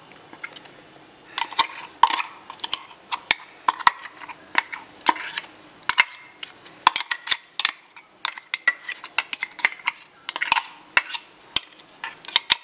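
Metal spoon scraping and clinking against a stainless steel cup and bowl while ground coconut paste is knocked out of the cup into the bowl: a run of sharp, irregular clinks and scrapes.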